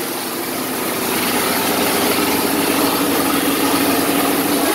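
Loud, steady mechanical whirring with a strong hiss from a workshop machine or power tool. It stops abruptly near the end.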